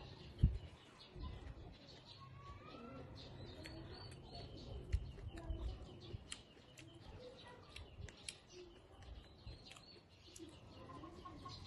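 Close-up chewing and crunching of raw greens dipped in chili sauce, with many small wet mouth clicks. Birds chirp in the background.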